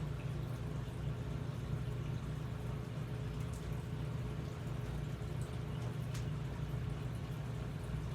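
Steady low hum of background room noise with a faint high tone, broken only by a couple of faint ticks.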